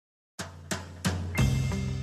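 Background music starting after a brief silence: drum hits about three a second over held bass notes.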